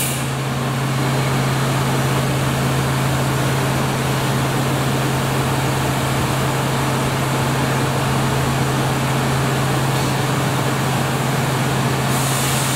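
Steady machine-shop din from CNC machining centers running, with a constant low hum under an even hiss. A short burst of higher hiss comes near the end.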